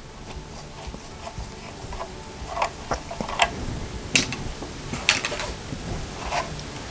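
Irregular clicks, light knocks and scrapes of hard plastic as the router's screw-on antennas are taken off and the router is handled, a few sharper clicks in the middle.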